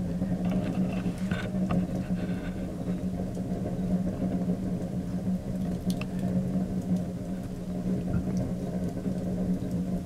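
Wood fire burning in a barrel stove: a steady low hum with a few scattered sharp crackles.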